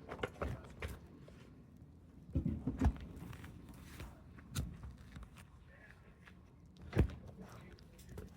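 Scattered thumps and footstep-like knocks over a low background, with a cluster of them between two and three seconds in and the loudest single thump about seven seconds in.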